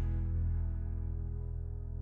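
Music: a held chord ringing out and slowly fading at the end of a children's song.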